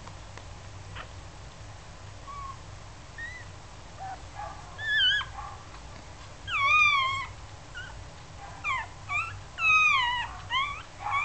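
Newborn schnauzer puppies crying with thin, wavering, mewing squeals. A few faint short squeaks come first, then louder cries from about five seconds in, one long one, and then several in quick succession near the end.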